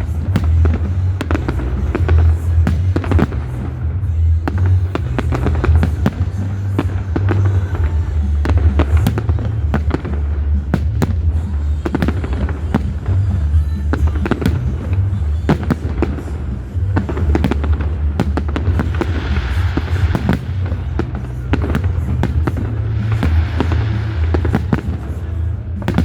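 Display fireworks going off continuously, many bangs and crackles in quick succession with no break.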